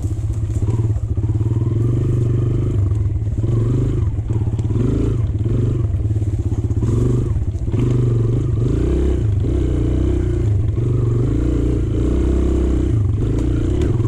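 Dirt bike engine running while riding, the revs rising and falling again and again as the throttle is opened and eased off.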